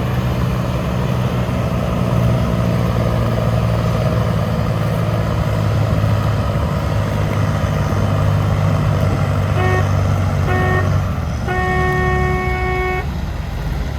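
Fendt Favorit 611 LSA tractor's diesel engine running hard and steady while pulling the sled, then dropping off about 11 seconds in. A horn sounds two short toots near the end of the run, then one longer blast of about a second and a half.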